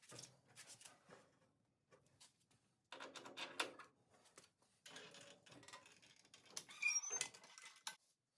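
Intermittent clinks, scrapes and rattles of metal hardware and hand tools being handled while a body mount bushing is fitted, with a short squeak near the end.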